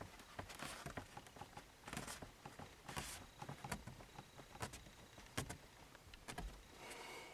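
Irregular light clicks, taps and short rustles, as of hands handling plastic car interior trim.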